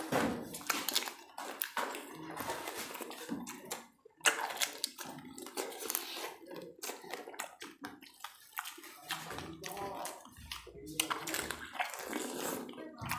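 Two people eating panipuri (golgappa): crisp hollow puris cracked open with the fingers, filled from bowls of spiced water and crunched and slurped in quick succession, with many sharp clicks and wet splashes of liquid.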